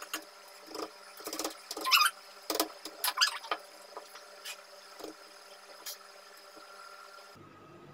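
Scattered light knocks and taps from handling chapathi dough among steel bowls and a board on a kitchen counter, with two short rising squeaks about two and three seconds in.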